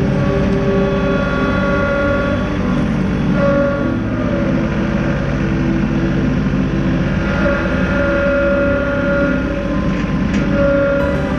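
John Deere compact tractor's diesel engine running steadily under work, with a whine that comes and goes as the front loader's hydraulics are worked.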